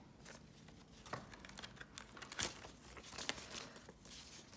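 Paper prop-money notes and an envelope being handled, faintly rustling and crinkling, with a few soft taps.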